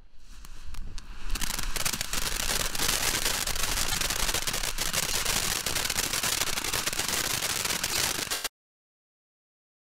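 Red Rhino 'Nuts Please!' consumer fountain firework burning: a steady rushing hiss of sparks laced with many small pops, with no whistle. It builds up over the first second or so, then cuts off suddenly.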